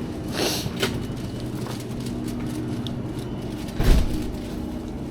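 Steady hum of supermarket freezer cabinets, with a brief rustle about half a second in, a click soon after, and a sharp thump just before four seconds in.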